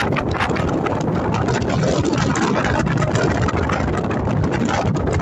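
Steady low rumble of a ferry's engines under wind blowing across the open deck, with a small cloth flag flapping rapidly and irregularly in the wind.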